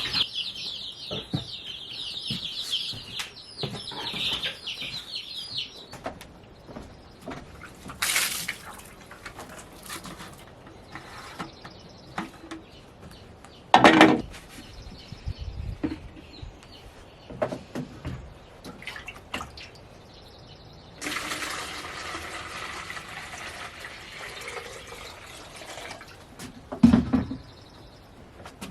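Baby chicks peeping for the first few seconds, then scattered handling clatter with a couple of louder thumps. Past the middle, water runs steadily for about five seconds as the chicks' waterer is cleaned out and refilled.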